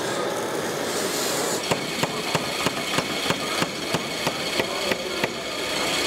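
Sharp, evenly spaced knocks, about three a second, starting a little under two seconds in. Under them runs the steady whine of radio-controlled model excavators' hydraulic pumps.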